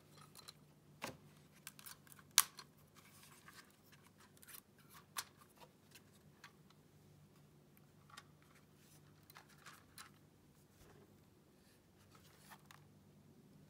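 Faint clicks, taps and rustles of a small plastic folding drone and its packaging being handled and lifted out of the box, with one sharper click a little over two seconds in. A faint steady low hum runs underneath.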